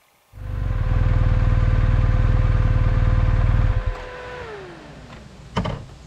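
Touring motorcycle's engine running with a pulsing rumble and shut off about three and a half seconds in. A steady whine carries on after it and winds down in pitch, and a single knock follows near the end.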